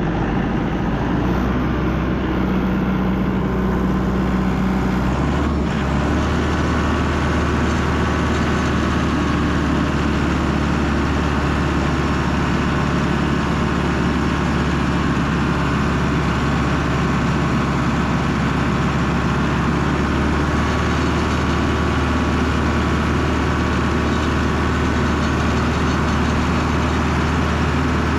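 A vehicle engine running steadily with a low hum, its tone shifting slightly about five seconds in.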